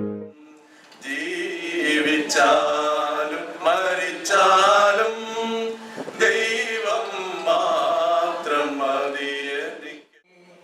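Unaccompanied male singing in Malayalam: a slow, chant-like song with long held notes and short breaks between phrases, starting about a second in.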